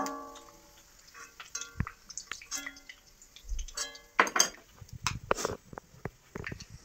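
A steel spoon clinking and scraping against a steel wok and a ceramic bowl as fried pieces are lifted out of the oil. A sharp ringing clink at the start dies away over about a second, followed by lighter clicks, a few more short ringing clinks and some scraping.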